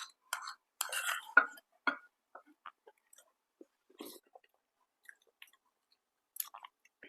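Close-up chewing and mouth sounds of someone eating: irregular short wet clicks, busiest in the first two seconds, sparse in the middle, with a few more near the end.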